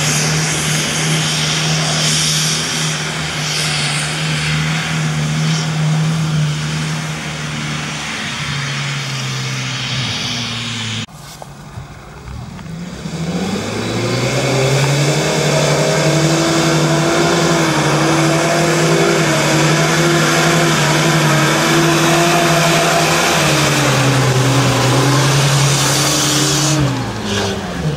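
Off-road 4x4 engine held at high revs while its wheels spin in mud. A sudden cut about eleven seconds in, then a UAZ-469's engine revs climb and stay high as it powers up a slope with wheels spinning, dipping briefly near the end.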